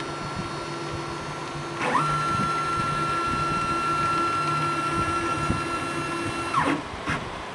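Motors of a homebuilt CNC gantry machine moving the tool head: a faint steady whine, then about two seconds in the pitch sweeps quickly up into a louder, steady high whine as the axis runs at speed. About a second before the end it sweeps down and stops, followed by a short click.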